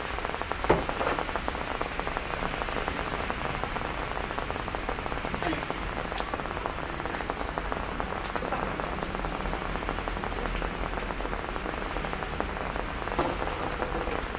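Steady rain falling, with a couple of short knocks about a second in and near the end as wet laundry and plastic basins are handled.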